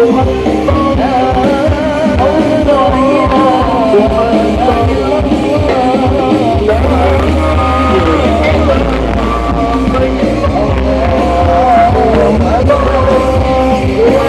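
Loud music with a singing voice and heavy bass, played over a large sound system.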